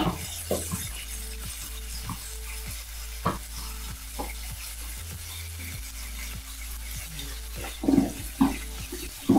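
Capers and swordfish frying in hot olive oil with a steady sizzle, under scattered plastic clicks and knocks as a personal blender's cup is capped, turned over and clunked onto its motor base, the loudest knocks about eight seconds in.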